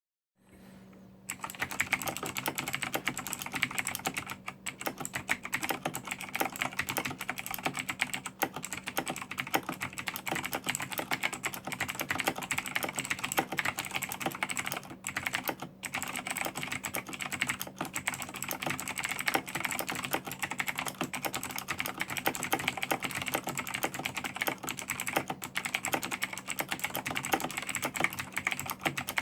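Fast continuous typing on a Razer BlackWidow Chroma mechanical keyboard with Razer Green clicky switches: a dense stream of sharp key clicks with brief pauses, over a steady low hum.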